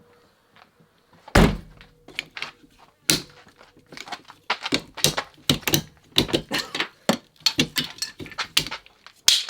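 A heavy thunk about a second and a half in, then a quick run of sharp clicks and knocks: hands and tools working on a car's rear wiper and tailgate trim.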